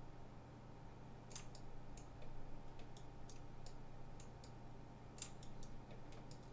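Scattered, irregular clicks of a computer mouse and keyboard, with small clusters about a second in and again about five seconds in, over a steady low hum.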